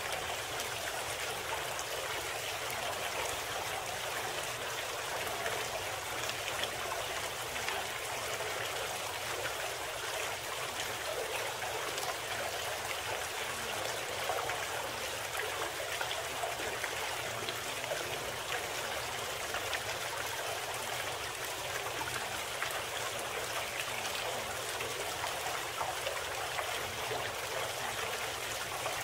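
Steady running water of a stream, an even rushing and trickling that does not change, used as the background bed of a subliminal audio track.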